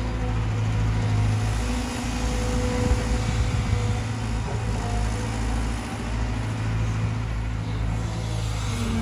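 Cat 320GC excavator's diesel engine running steadily under load, with a steady high whine over the low engine drone and a single knock about three seconds in.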